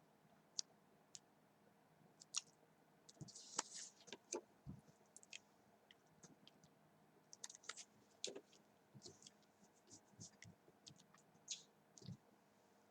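Near silence broken by scattered faint clicks and small soft noises, about twenty spread unevenly.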